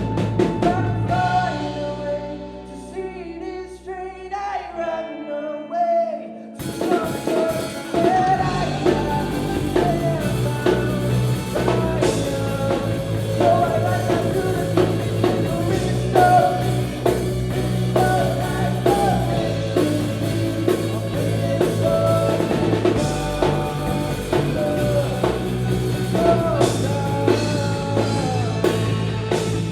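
Live band playing a rock song: a voice singing over sustained bass and chords, with the drum kit coming in at full band about six and a half seconds in.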